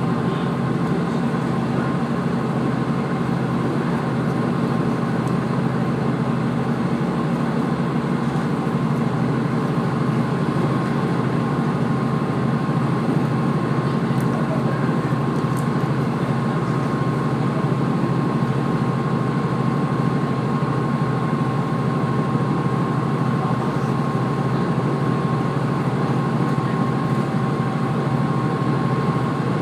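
Steady running noise of a diesel railcar train heard from on board: an even rumble with a thin steady whine over it.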